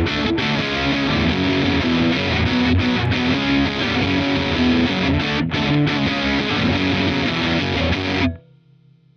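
Electric guitar played through a The Crook V4 overdrive pedal, giving a thick distorted tone over changing notes and chords. The playing stops abruptly about eight seconds in, leaving a faint hum that fades away.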